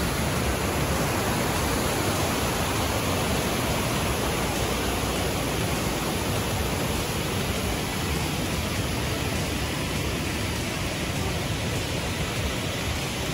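Steady rush of white water from the rapids and falls of a brook, an even roar with no breaks, easing slightly toward the end.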